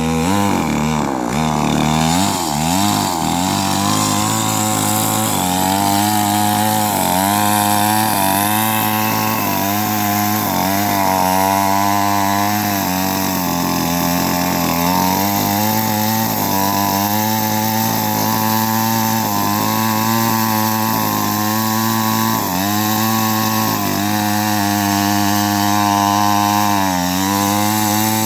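Chainsaw running at high revs while cutting through a rubber tree trunk, its engine pitch held steady with repeated small dips and recoveries as the chain bites under load.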